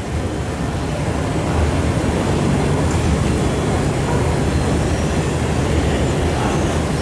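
Cargo barge's engine running with a steady low rumble as the barge moves slowly past, growing louder over the first second or two.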